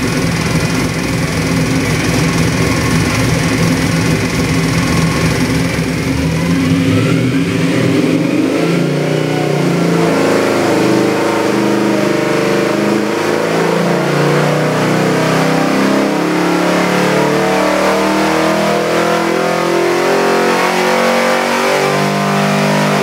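All-aluminum 427 big-block Chevy V8 with a hydraulic roller cam running on an engine dyno: it idles, then from about six seconds in it revs up and is pulled under load in a sweep test, its pitch climbing steadily from around 3,000 to nearly 6,000 rpm.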